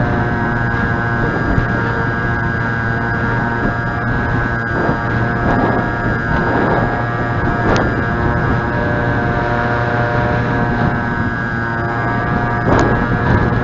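Motor and propeller of a three-channel high-wing pusher RC plane running at a steady speed, heard as a loud, even buzz with many overtones, with wind noise rushing over the microphone in very windy conditions.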